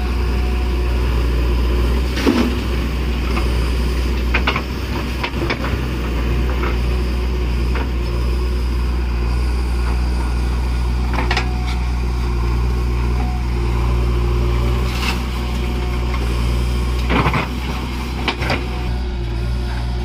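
JCB backhoe loader's diesel engine running steadily under load as the backhoe arm digs and swings soil, with a few short sharp knocks and clanks from the bucket and arm.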